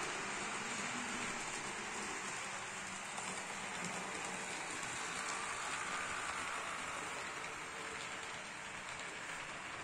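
HO-scale model freight train running on the layout's track: a steady whirring hiss of the motor and the wheels rolling on the rails, without a break.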